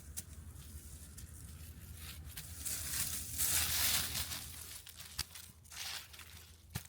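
Rustling and tearing as something is handled and pulled apart. It is loudest in a long stretch about three seconds in, with a couple of sharp snaps near the end.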